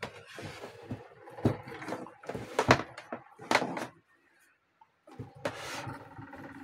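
Handling noise from a powered audio mixer being tilted and set back down on its stand: a string of knocks and thunks, with a short pause a little past the middle. A steadier sound with held tones starts near the end.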